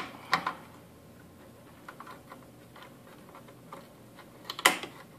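Sharp clicks and taps of a wireless card and circuit board being handled and pressed into a metal access-point chassis: a couple of clicks near the start, a few faint ticks in the middle, and a loud cluster of clicks near the end.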